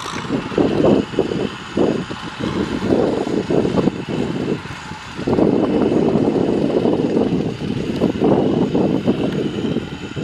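Farm tractor's diesel engine running as the tractor pushes soil with a front dozer blade, a rough uneven rumble that rises and falls in level, louder from about halfway through.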